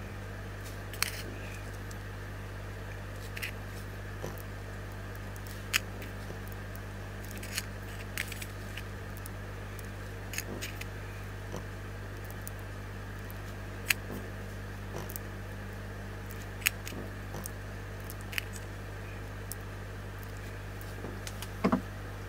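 Sparse small clicks and taps from hands handling a plastic edible gel pen and small candies, over a steady low hum, with a short cluster of taps near the end.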